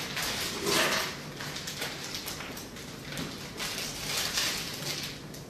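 Irregular rustling and shuffling noises from someone handling things and moving about, with no steady machine sound.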